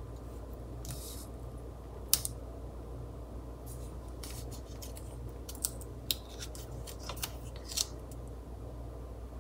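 Washi tape being handled and pressed down onto paper with the fingers: a scattered series of short crisp rasps and clicks, the sharpest one about two seconds in, over a faint steady low hum.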